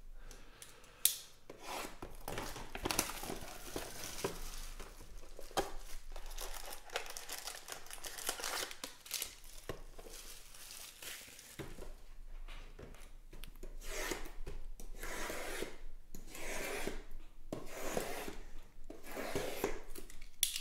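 Hands opening a cardboard hobby box of trading cards and pulling out its foil-wrapped packs: the box flaps tear open and the wrappers crinkle and rustle as the packs are handled and stacked, with a few sharp clicks.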